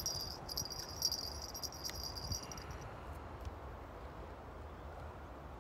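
An insect trilling steadily in a high, thin buzz that stops about three seconds in, over a faint low rumble.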